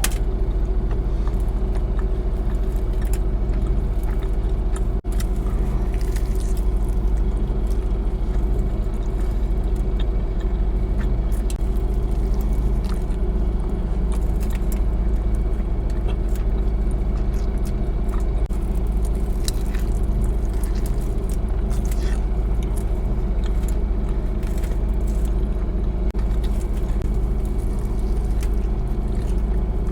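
Steady low rumble of an idling car engine heard inside the cabin, with scattered short clicks and crunches of someone biting and chewing a burrito.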